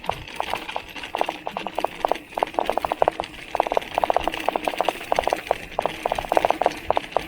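Bottle cage on a Giant XTC mountain bike rattling during riding, in quick bunches of sharp clicks over a steady hiss.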